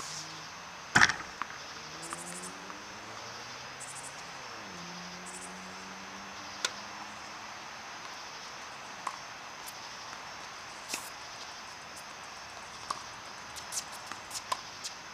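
A tennis ball struck sharply by a racket about a second in, one loud ringing hit, followed by a few fainter, scattered knocks over a steady background hiss.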